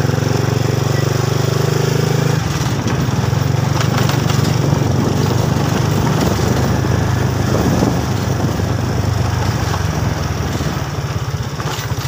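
Small motorcycle engine running steadily. From about two seconds in, a rough rushing noise joins it and partly covers the engine note.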